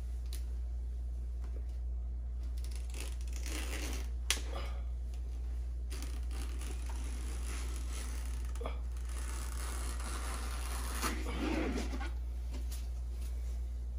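Utility knife blade cutting grasscloth wallpaper as it is trimmed into an inside corner: a few soft, scratchy cutting strokes and rustles of the paper, with a sharp click about four seconds in, over a steady low hum.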